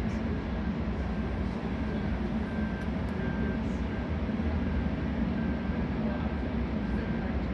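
Caisson drilling rig's diesel engine running steadily with a heavy, even rumble. A faint high beep repeats a little under twice a second over it.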